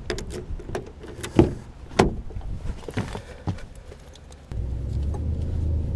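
Key working a truck's driver-door lock, then the door handle and latch clicking and knocking as the door is opened and someone climbs in. About four and a half seconds in, the Nissan truck's engine starts and settles into a steady low idle.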